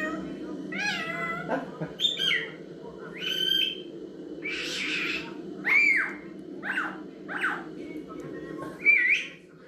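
Parrot calling: a string of short meow-like calls that rise and fall in pitch, with one harsh squawk about halfway through.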